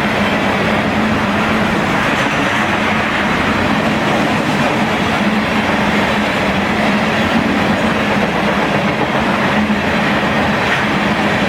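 CSX freight train's cars rolling steadily past, their steel wheels running on the rails in an even, continuous rolling noise.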